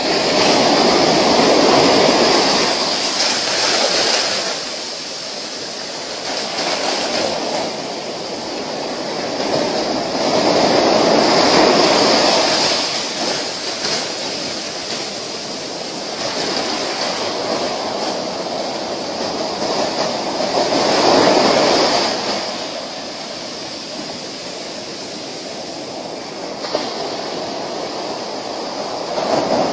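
Ocean surf breaking on a sandy beach. It is a steady rush of noise that swells with each incoming wave, about every nine or ten seconds.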